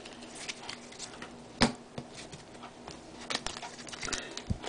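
Trading cards being flipped through by hand: scattered light clicks and snaps of card stock, the sharpest about a second and a half in.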